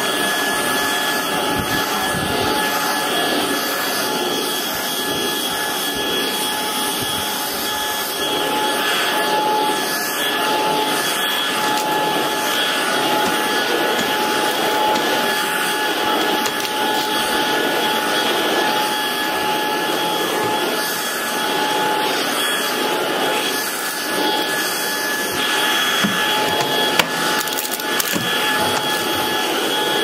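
Proscenic cordless stick vacuum running with a steady high motor whine, its motorised brush head pushed back and forth over a shag rug and onto a laminate floor.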